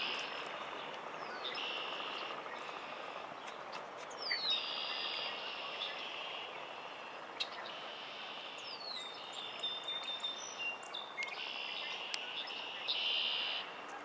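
Red-winged blackbirds singing and calling: short buzzy trills repeated every second or two, with a couple of falling whistled notes around the middle, over a steady background hiss.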